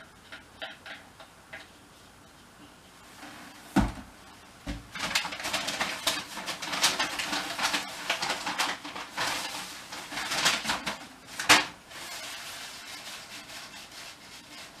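Handling noises at a table: a few faint clicks, then two sharp knocks about four seconds in, several seconds of crinkling and rustling, and one more sharp knock about three quarters of the way through.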